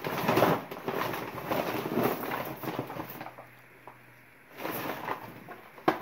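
Rustling and clattering of items being handled while rummaging through a box of holiday decorations, busy for about the first three seconds, then quieter, with a sharp knock just before the end.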